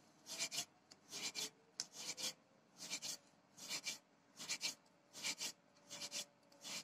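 Hands pressing and rolling rice-flour dough into thin chushi pitha strands on a floured wooden board: a quiet rasping rub repeated about once every 0.8 seconds.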